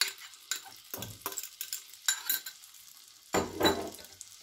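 Melted butter sizzling faintly in a frying pan while mashed roasted garlic is scraped out of a glass bowl into it with a spoon, giving a string of short scrapes and taps. A louder knock comes a little over three seconds in.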